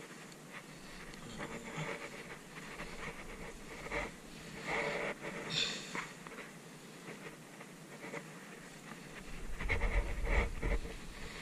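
Heavy breathing close to the microphone over the rustle of hands gripping a caught queenfish while the hook is worked out of its mouth. A low buffeting rumble comes near the end.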